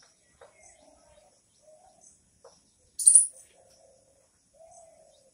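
Chalk writing on a blackboard: a run of short scratchy strokes with a few light taps, and one sharp, louder tap about three seconds in.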